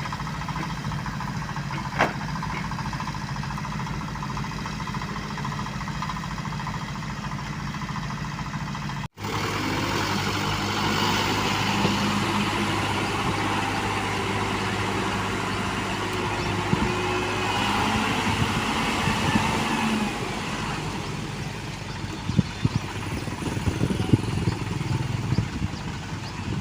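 Diesel engines of road-paving machinery running steadily. A brief dropout about nine seconds in, then a louder, busier machine sound, with scattered knocks and clatters near the end.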